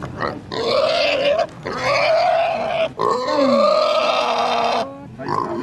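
Young pig squealing while held, in several drawn-out squeals of a second or more each; the last lasts nearly two seconds.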